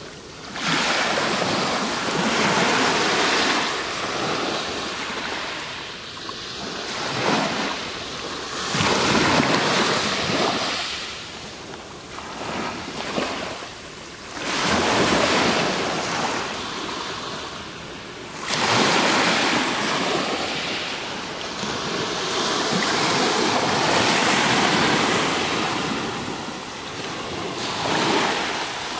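Small waves breaking on a pebble beach and washing over the stones, each a loud hissing surge that swells and fades, coming again every few seconds.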